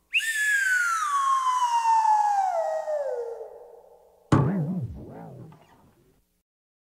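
Cartoon falling-whistle sound effect: one long whistle gliding steadily down in pitch for about three seconds, then a sudden hit with a wobbling tone that fades away.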